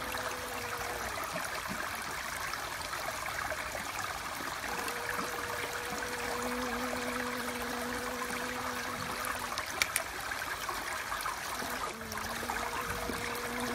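Steady rush of running water, like a small stream, with a low even hum that fades out and comes back a few times. A brief click sounds about three-quarters of the way through.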